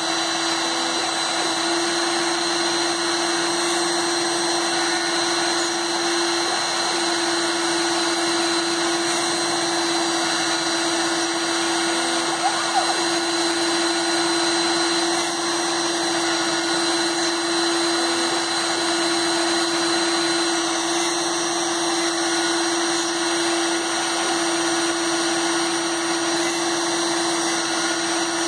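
Proxxon rotary tool spinning a 1.05 mm PCB drill bit on a home-made CNC machine, running steadily with a constant whine as it drills holes in a copper-clad circuit board.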